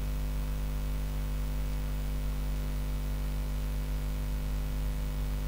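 Steady electrical mains hum with a layer of hiss in the recording chain, unchanging throughout.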